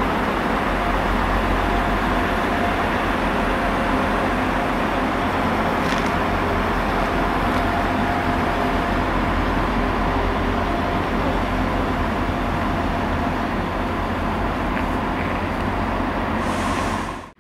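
Diesel multiple-unit trains running in a station: a steady engine drone and rumble with a constant low hum.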